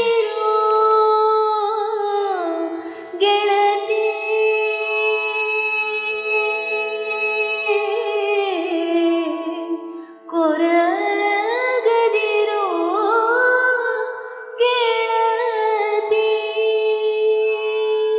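A woman singing the closing refrain of a Kannada ghazal, a slow line with sliding ornaments over a steady held accompaniment. New phrases begin about three, ten and fourteen and a half seconds in.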